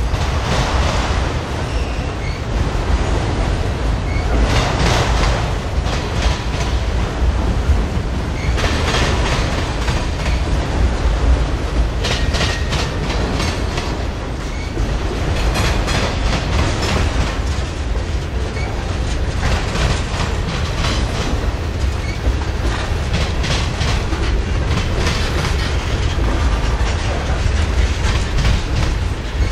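Freight train cars rolling past, wheels clattering on the rails over a steady low rumble, with a louder surge of clatter every three to four seconds as each car's wheel sets go by.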